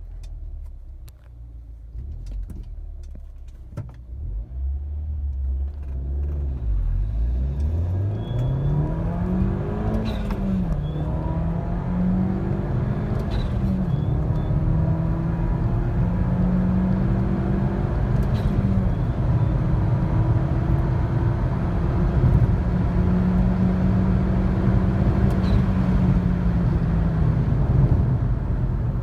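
Turbocharged Mini Cooper four-cylinder engine pulling away and accelerating through the gears of its manual gearbox: after a low rumble, the engine gets louder about six seconds in, and its pitch climbs, drops at each shift and climbs again, three or four times.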